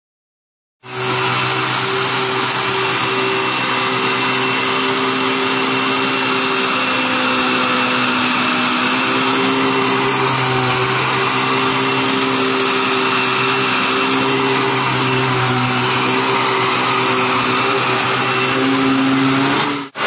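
Hoover Tempo Widepath upright vacuum cleaner running with a steady motor hum and whine. It starts abruptly about a second in, and cuts out briefly near the end before carrying on.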